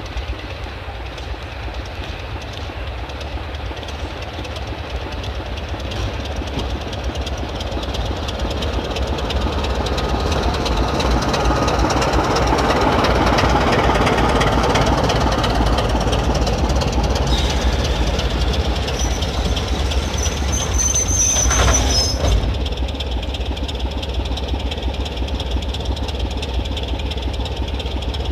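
Sulzer-engined British Rail diesel locomotive running, its engine sound growing louder towards the middle. About twenty-two seconds in, after a brief high squeal, the level drops suddenly, leaving a quieter engine running steadily.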